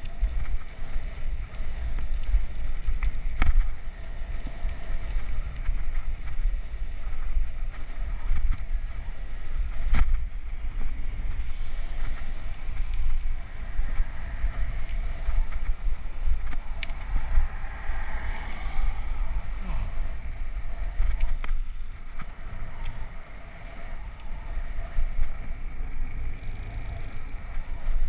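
Wind buffeting the microphone of a helmet-mounted GoPro on a moving bicycle: a steady, fluctuating low rumble, with a few sharp knocks from the bike over the road.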